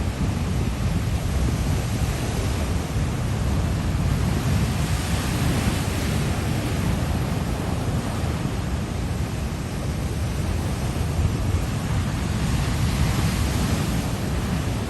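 Steady wind buffeting the microphone over the constant rush of a rough sea in heavy swell.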